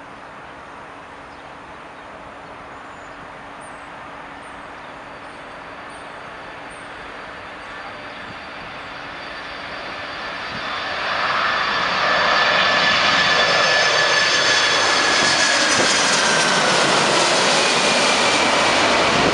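Boeing 747-400 freighter's four turbofan engines on landing approach, the jet noise growing from faint to loud as it passes low overhead, with high whining tones that drop slightly in pitch as it goes by.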